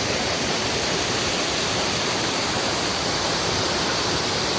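Steady rush of a mountain stream and waterfall running high and fast, swollen by days of heavy rain.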